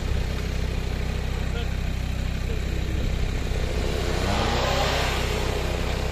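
Off-road 4x4 engine running with a steady low drone, revving up briefly about four seconds in.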